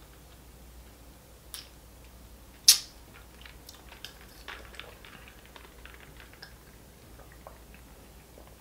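Quiet mouth sounds of a person eating and drinking: lips smacking while licking fingers, then sips from a plastic sports bottle, made up of scattered small clicks. One sharp click comes a little under three seconds in.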